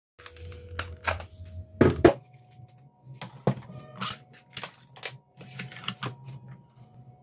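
Hard plastic clicks and knocks of a cordless nailer being handled: the battery pack unlatched and pulled off, then the tool and batteries set down on a table and the nail magazine worked by hand. The loudest knocks come around two seconds in.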